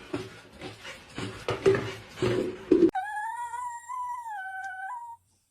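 Muffled animal noises for about three seconds, then a pet's clean, high, wavering cry held for about two seconds that stops abruptly.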